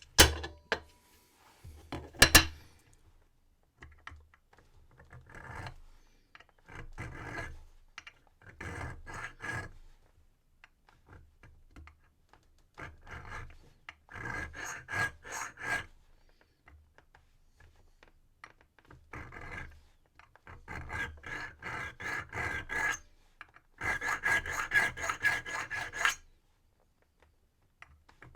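Hand file rasping across a brass key blank, filing down the cuts where the lock's wafers left impression marks. The strokes come in short runs of several strokes a second with pauses between them, after a couple of sharp knocks in the first few seconds.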